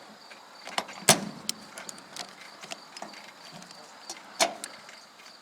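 Ratchet strap being released: irregular sharp clicks and clacks of the ratchet mechanism, with a louder clack about a second in and another near the end, as the tension on the steel arch sections is let off.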